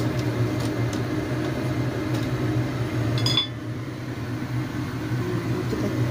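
Cooking at the stove: a pot of instant noodles with bean sprouts cooking over a steady low hum, with a few light clinks of a utensil against the pot. A sharper clink comes about three and a half seconds in, and after it the background is a little quieter.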